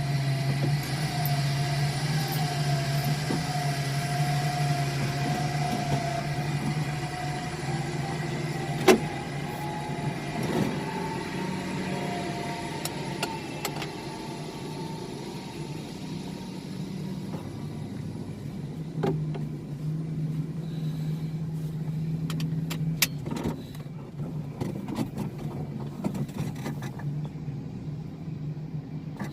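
Heavy mining machinery engine running steadily, with a wavering whine over the drone and a few sharp knocks, the loudest about nine seconds in.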